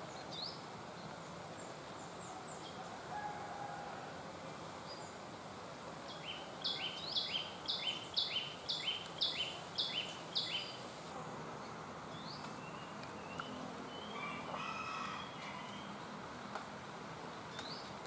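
Small songbird known locally as cit kemade calling: scattered single high chips. Then, about six seconds in, a fast run of repeated two-part sharp notes, about two a second, lasting some four seconds, with a few softer chirps afterwards. A steady background hiss runs underneath.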